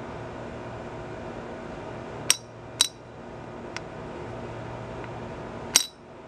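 Sharp metal clinks from the pivoting lever wings of a Chopper splitting axe head as they are moved by hand: two about half a second apart, a faint one, then another near the end, each ringing briefly.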